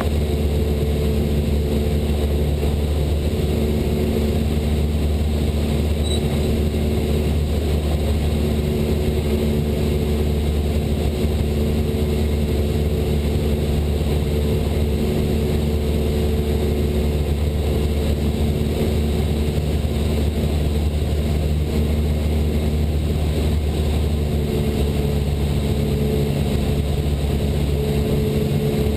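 Cessna 172 Skyhawk's piston engine and propeller droning steadily in level flight, with no change in pitch.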